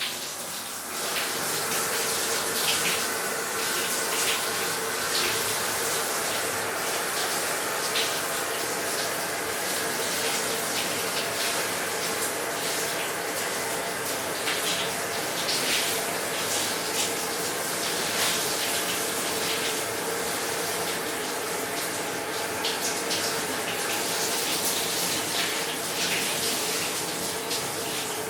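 Shower running: a steady spray of water splashing down, coming up to full flow about a second in and then holding even.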